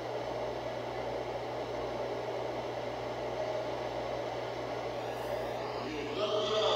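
Steady background noise of a large sports arena: a low, even hall murmur with a faint electrical hum. About six seconds in, it gets louder and held pitched tones come in.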